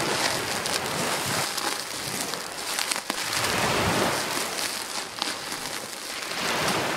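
Surf washing up a sandy beach: a steady hiss of foaming water that swells and eases every few seconds.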